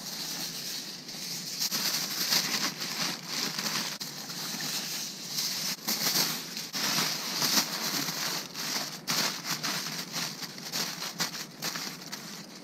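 Aluminium foil crinkling and crumpling as it is handled and folded by hand into a parcel: a dense, uneven run of small crackles.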